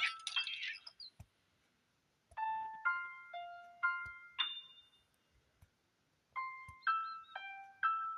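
Background music: a plinking, keyboard-like melody in short phrases of four or five notes, about two notes a second, with gaps of about a second and a half between phrases.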